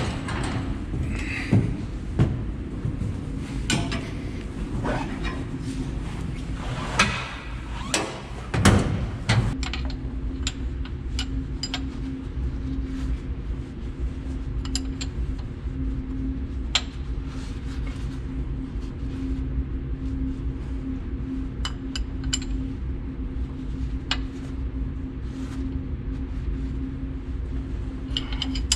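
Scattered metallic clicks, clinks and knocks of hand tools working on a combine part, busiest in the first ten seconds, over a steady low hum.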